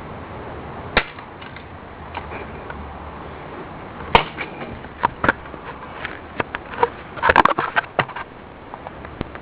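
An alarm clock being beaten: sharp knocks as it is struck, one hit about a second in, then a run of hits from about four seconds in, with a quick flurry of clattering knocks around seven to eight seconds.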